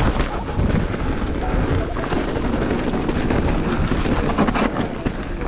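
Mountain bike riding down a dirt singletrack, heard through a moving camera: steady wind rush on the microphone with tyre noise and short clicks and knocks from the bike rattling over bumps.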